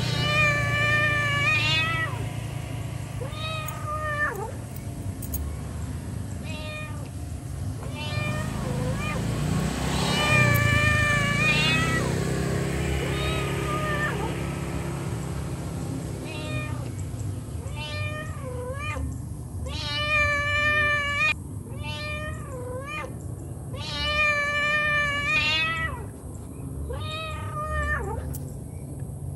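Domestic cat meowing over and over, about fifteen calls, some short and some drawn out, each bending up and down in pitch: the calls of a mother cat calling her kittens. A low steady hum runs underneath, strongest in the first half.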